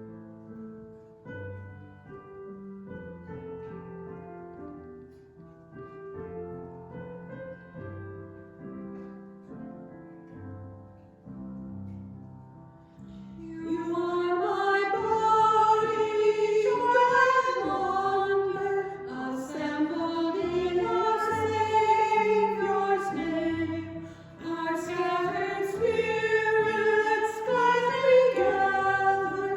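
Hymn music: a quiet instrumental introduction of held keyboard notes, then voices come in singing from about 13 seconds in, noticeably louder.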